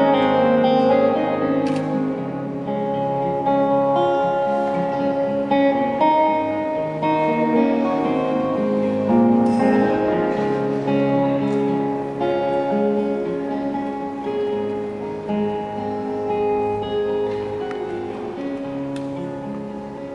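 Acoustic guitar and electric guitar playing an instrumental passage together, picked notes and chords, slowly growing quieter toward the end as the song winds down.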